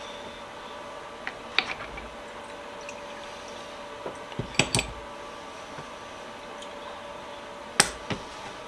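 Metal vise parts clinking and knocking against each other and the container as they are lifted out of a Deox C rust-remover bath, a handful of sharp clinks with the loudest near the end, over a steady low hum.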